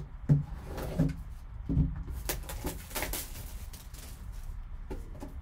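Handling noise from a shrink-wrapped cardboard card box being picked up and turned over on a table: a string of irregular light knocks and rustles.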